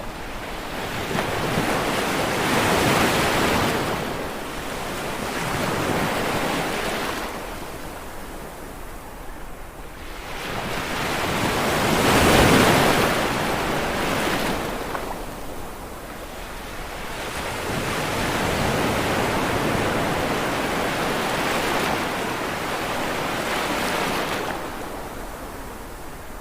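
Sea waves washing onto a shore, swelling and falling back in about five slow surges, the loudest about halfway through.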